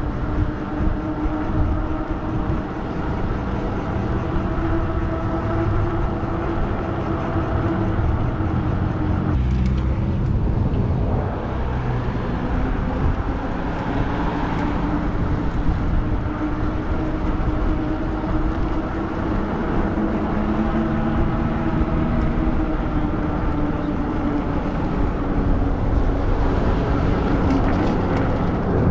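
Riding a Lectric XP e-bike: wind rumbling on the microphone over a steady motor hum whose pitch drifts slightly with speed, dipping briefly about ten seconds in.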